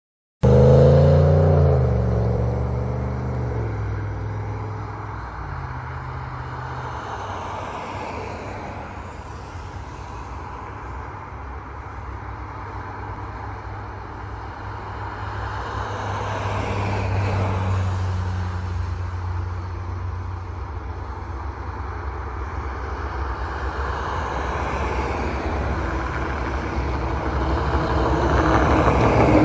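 Road vehicles passing on the adjacent road: one goes by close at the start, falling in pitch, then several more pass one after another, the loudest near the end. Underneath is a steady low rumble of approaching diesel freight locomotives.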